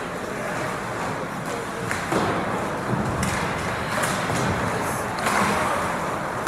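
Ice hockey play in an indoor rink: skates scraping the ice, with a few scattered knocks of sticks and puck.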